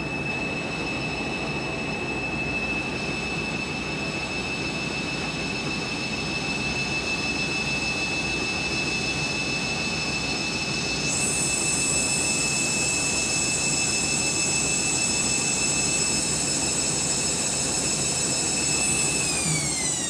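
Candy washing machine spinning: a steady high-pitched motor whine over the rush of the drum, growing brighter about halfway. Near the end the whine falls in pitch as the spin slows down.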